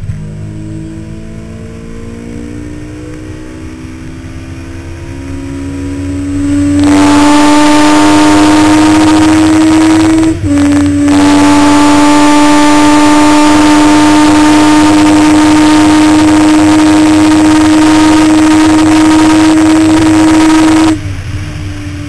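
Honda CBR1100XX Blackbird's inline-four engine pulling hard at high speed, its note climbing steadily. About seven seconds in, a loud wind rush swamps the helmet-mounted microphone, with a brief break for a gear shift about halfway. The rush cuts off suddenly about a second before the end, leaving the engine note alone.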